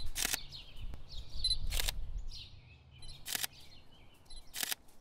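Camera shutter clicks, four of them about a second and a half apart, over outdoor ambience with birds chirping faintly.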